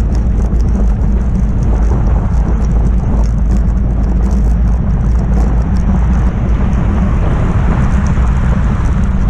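Steady wind rumble buffeting the camera's microphone on a moving velomobile, mixed with road noise.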